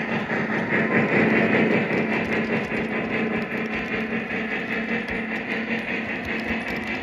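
O-gauge model train running on three-rail track: the Lionel Vision Line Niagara steam locomotive and its passenger cars roll past with a steady rumble of wheels and motor.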